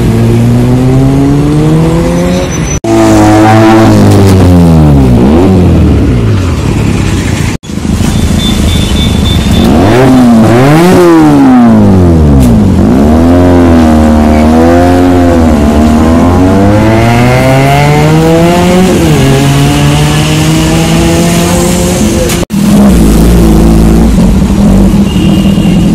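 Superbike engines with loud exhausts revving hard and accelerating past, the engine note climbing and falling in repeated sweeps. The sound breaks off and restarts three times. Near the end a bike holds a deep, steady note.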